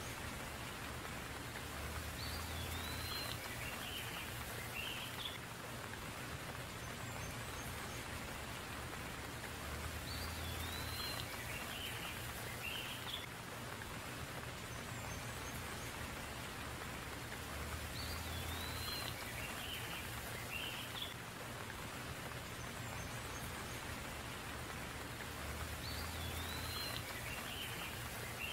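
Steady rain falling. A bird's short phrase of several high, sliding notes recurs about every eight seconds, the same each time.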